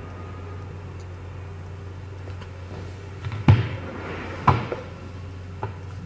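Leather phone wallet cases being handled on a wooden table: two sharp knocks about a second apart, then a lighter click, over a steady low hum.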